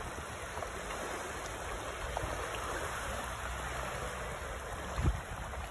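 Shallow sea water washing and rippling over a sandy shore, a steady wash, with a brief low thump about five seconds in.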